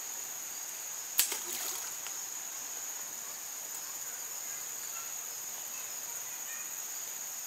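Insects droning steadily at a high pitch. A single sharp click comes about a second in, followed by a couple of fainter ones.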